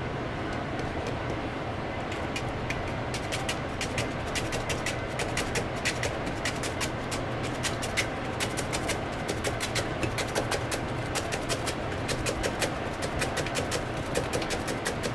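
A knife chopping on a plastic cutting board: quick, irregular taps, several a second, that grow denser after the first couple of seconds. A steady low hum runs underneath.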